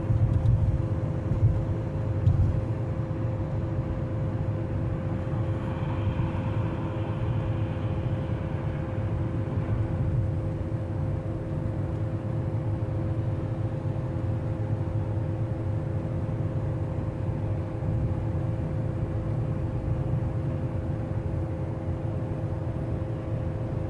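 Car driving on the highway: steady low road rumble with a constant hum.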